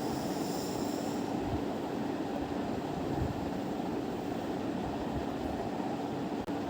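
Electric fan running with a steady hum over an even whooshing noise.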